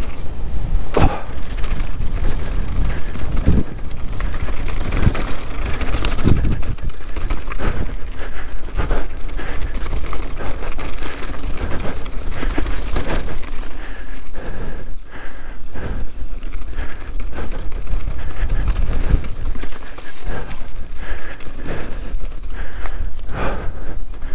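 Canyon Sender downhill mountain bike riding fast over dirt and rocky trail: tyres rolling and crunching on loose ground, with frequent knocks and clacks from the bike over rocks and bumps. Wind rushes over the on-board camera's microphone throughout.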